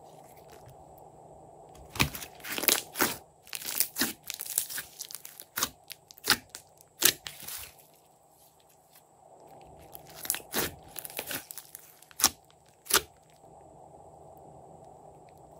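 Thick slime being stretched, pulled and folded by hand, giving sharp sticky crackles and pops. They come in two runs, from about two seconds in and again from about ten seconds in, with quieter stretches between.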